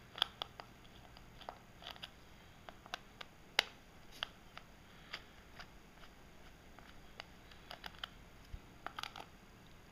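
Small screwdriver working the tiny screws out of the back of a plastic remote control: scattered faint clicks and ticks of metal on screw heads and plastic, the sharpest about three and a half seconds in.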